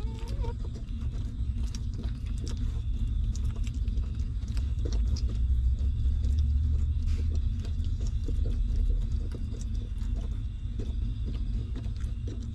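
Newborn puppies suckling at their mother while she licks them, making small wet clicking and smacking sounds. Under them runs a steady low rumble that swells in the middle.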